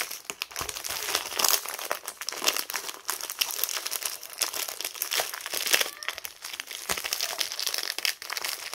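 Plastic bag crinkling and crackling in the hands in irregular bursts as a rolled diamond-painting canvas is worked into it.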